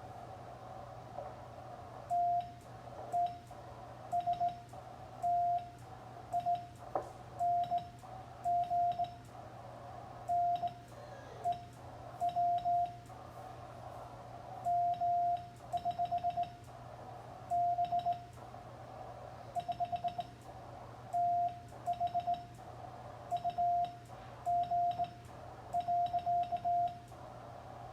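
Morse code (CW) from an amateur radio transceiver: a single tone of about 700 Hz keyed on and off in dots and dashes, over a steady low hum and hiss, with faint clicks alongside the keyed groups.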